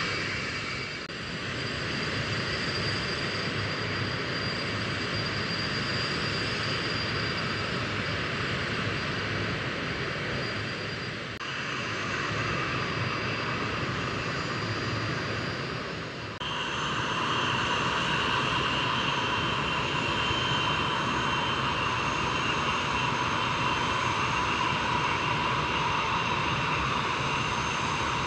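Lockheed L-1011 TriStar's Rolls-Royce RB211 turbofan engines running steadily on the ground, a jet roar with a high whine. About two thirds of the way through the sound steps up louder, with the whine stronger.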